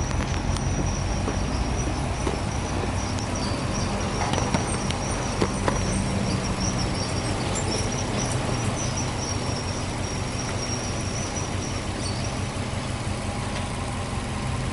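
Subaru Impreza WRX STi's turbocharged flat-four boxer engine idling steadily with the hood open.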